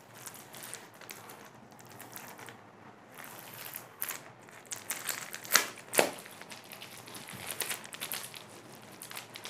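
Clear plastic polybags around packed t-shirts crinkling as they are handled and picked up, with two sharper crackles about five and a half and six seconds in.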